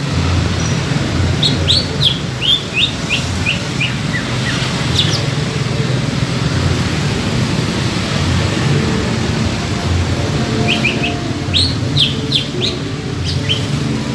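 Green leafbird (cucak ijo) singing: two runs of quick, clear whistled notes, each sliding downward, the first about a second in and the second about ten seconds in. A continuous low-pitched background sound runs underneath.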